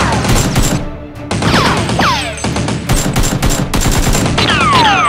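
Rapid machine-gun-style gunfire sound effects dubbed over background music, with repeated falling swooping tones. A short lull in the firing comes about a second in.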